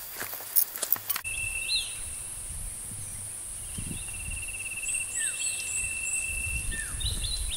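Footsteps crunching on loose stones for about the first second, then open-country ambience: a steady high insect drone, a fast trilling note repeating on and off, short bird chirps, and low wind rumble.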